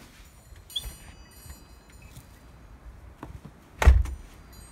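A door shuts with one loud thud about four seconds in. Faint high bird chirps, a few light clicks and a low outdoor rumble run under it.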